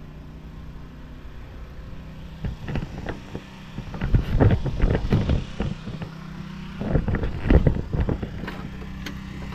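An engine running steadily at idle, a low hum, with irregular knocks and thumps over it, loudest about four to five seconds in and again around seven to eight seconds.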